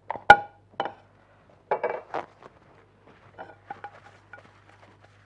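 Dishes and utensils being handled on a kitchen counter: a sharp, ringing clink just after the start, a cluster of clattering knocks around two seconds in, then lighter taps.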